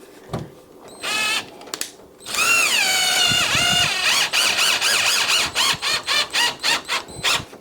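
A power drill whining, its pitch sagging and recovering under load, then run in short quick bursts of about three a second, while a door lock's hole or screw is being worked.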